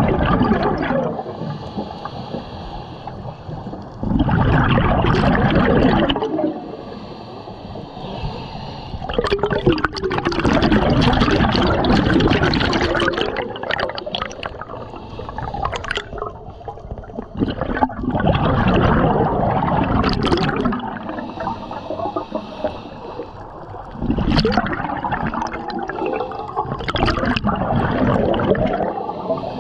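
A scuba diver's exhaled bubbles gurgling and rushing from the regulator, in loud surges of a couple of seconds every five to eight seconds with quieter stretches between breaths.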